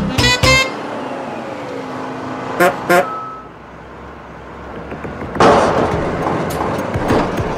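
Background music ends in the first second; then a vehicle horn gives two short toots about two and a half seconds in. A couple of seconds later a loud rushing, crackling vehicle noise starts suddenly and continues.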